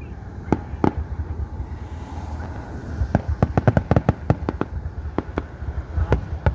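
Fireworks going off in a string of sharp pops and crackles, a few scattered at first and growing into a dense rapid crackle about three seconds in.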